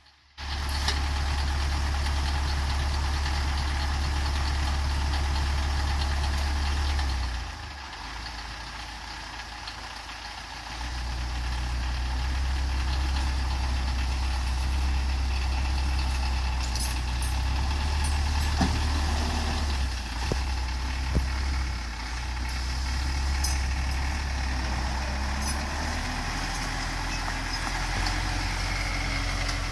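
Belarus MTZ-82 tractor's four-cylinder diesel engine running steadily. It drops to a quieter, lower note for about three seconds a quarter of the way in, then picks up again. A few short knocks come about two-thirds of the way through.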